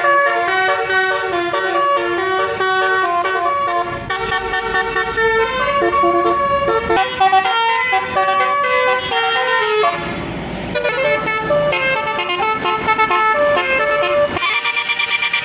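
Indonesian bus 'telolet' multi-tone horn playing a quick melody, its notes changing several times a second, with a brief rushing noise about ten seconds in and a new tune starting near the end.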